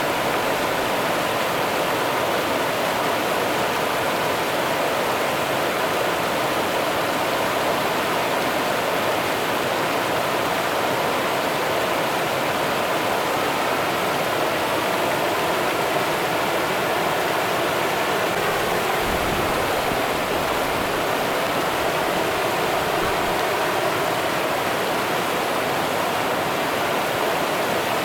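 Rio Grande river water rushing and flowing over rocks: a steady, even rush with no breaks.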